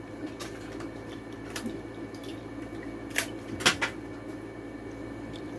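A few sharp clicks and taps from die-cast toy cars and their plastic packaging being handled, the loudest a quick pair about three and a half seconds in, over a steady low hum.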